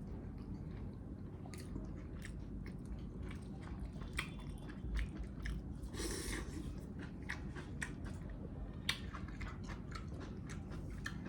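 A person chewing and biting into spicy mutton leg pieces close to the microphone: wet mouth clicks and smacks scattered irregularly through the chewing.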